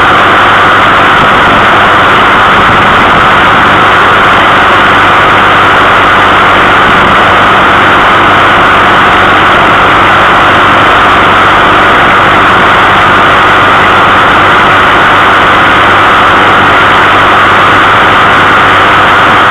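Vehicle engine running steadily at cruising speed, mixed with road and wind noise. It is very loud and constant, with a steady low hum under a dense hiss, and the pitch does not change.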